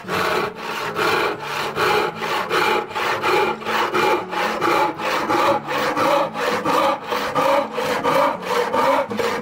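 Stanley SharpTooth handsaw with induction-hardened teeth crosscutting a wooden board: steady, rhythmic back-and-forth sawing strokes, about two a second.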